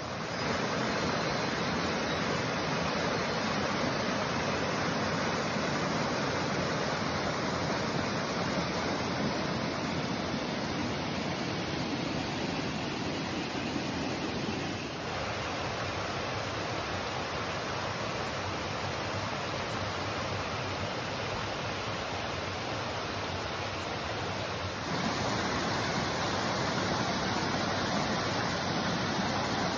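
Waterfall rushing steadily, a continuous wash of falling water, dipping slightly in level about halfway through and stepping up again near the end.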